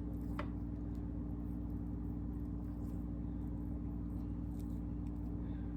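Steady low hum with several fixed pitches that does not change, with a few faint light clicks and taps over it.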